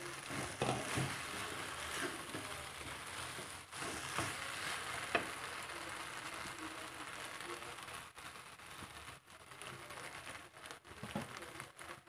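Paella rice sizzling in a nonstick wok as its stock cooks down, stirred and scraped around the pan with a spatula. There are a few scrapes and knocks in the first half, and the sizzle grows fainter and patchier after about eight seconds.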